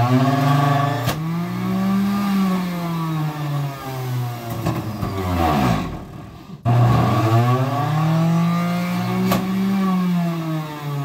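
A motor running loudly, its pitch climbing and then sinking. It cuts off suddenly about six seconds in and starts again straight away.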